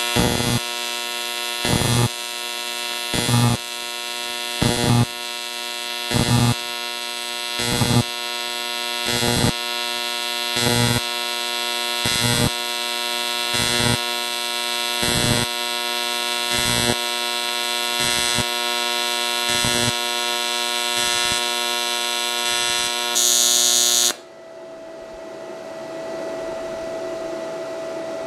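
AC pulse TIG welding arc on aluminium from a YesWelder TIG 200P, set to 120 Hz AC: a steady buzz that swells louder about every second and a half as the pulse switches to peak current. About 24 seconds in, the arc stops and only a lower steady hum remains.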